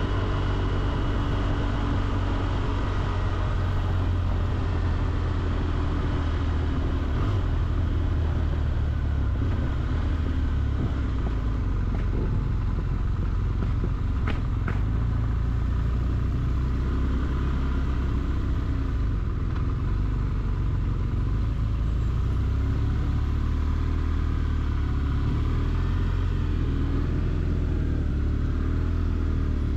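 Motorcycle engine running under way with wind rushing past, heard from the rider's seat. In the last few seconds the engine note rises and falls as the bike slows to walking pace.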